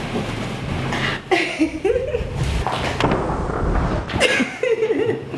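A woman laughing, in two short bouts: one about a second in and another near the end.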